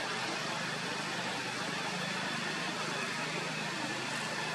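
A vehicle engine running steadily, a constant low hum under an even hiss.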